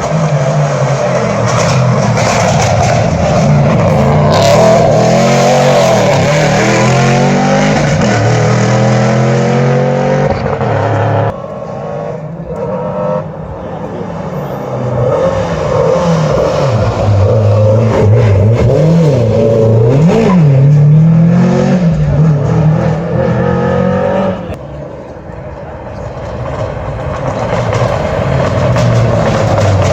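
Rally car engines revving hard through a hairpin bend. The pitch rises and drops over and over with gear changes as each car accelerates away, and the sound breaks off abruptly twice before the next car's engine takes over.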